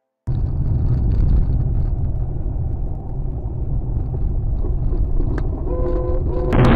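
Steady low rumble of a car's engine and tyres on a snowy road, heard from inside the cabin by a dash cam. It starts just after the beginning. About six and a half seconds in, a louder rushing noise cuts in.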